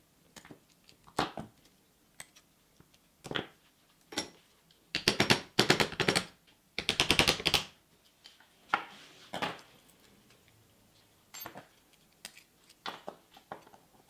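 Hand tools working on an old NiMH drill battery pack: sharp snips and clicks as cutters cut through the cells' nickel strips and metal terminal parts, with two runs of rapid rattling clicks about five and seven seconds in.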